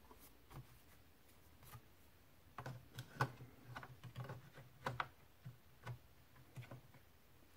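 Faint, irregular clicks and taps of a 2.5-inch Crucial SSD in its mounting bracket being pressed and seated by hand into a laptop's plastic drive bay. The clicks start about two and a half seconds in.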